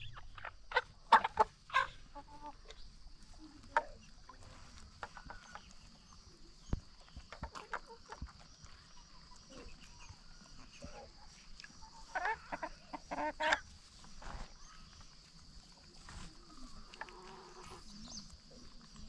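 Free-range chickens clucking on and off, with a louder run of calls a little past the middle, over a faint steady high-pitched hiss.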